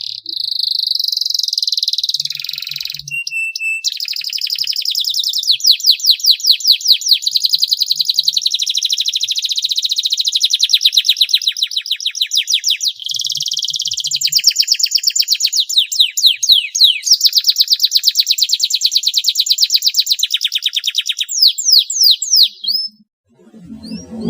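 Domestic canary singing a long unbroken song of rapid trills and rolls, strings of quick downward-sweeping notes repeated many times a second. It breaks off shortly before the end.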